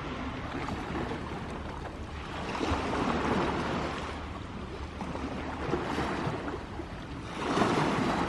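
Sea waves washing in, with two swells of surf, one about three seconds in and a louder one near the end.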